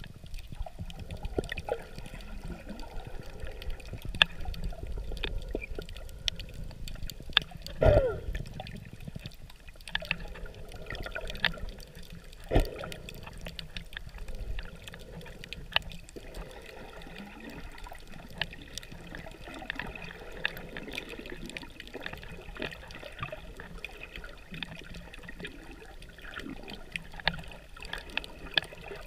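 Underwater sound through a submerged camera: muffled water sloshing and gurgling with many scattered clicks and crackles, and one louder gurgle that falls in pitch about eight seconds in.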